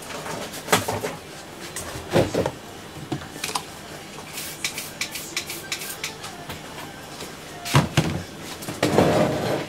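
Scattered clicks and knocks of small craft items being handled and set down on a table, with a short rustle near the end.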